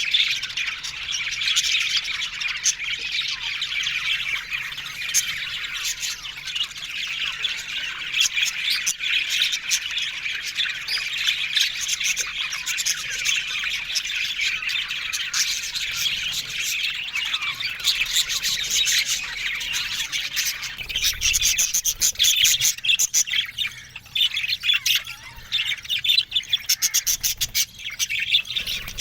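A flock of budgerigars chattering and chirping without a break, many birds at once, with rapid clicking trills coming through more strongly in the last several seconds.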